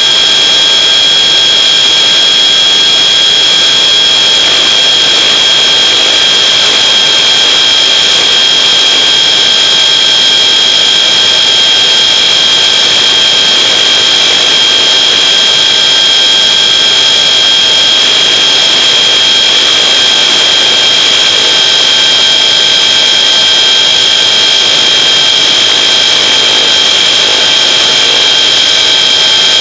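Electric RC car's motor and drivetrain whining at one steady high pitch while it cruises at speed on a 2S LiPo pack, heard from on board with tyre and wind noise underneath.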